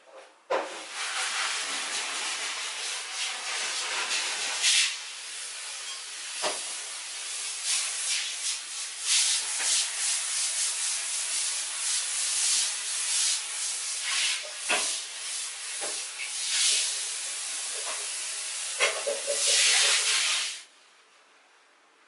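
Handheld shower head spraying hot water over a bathroom washbasin to soak it before cleaning: a steady hiss of water on the porcelain with a few knocks, cut off suddenly near the end.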